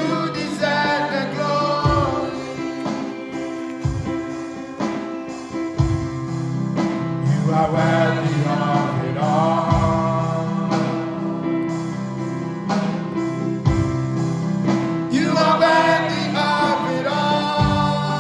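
Live gospel worship music: singing over sustained instrument chords, with a low drum hit every two to four seconds.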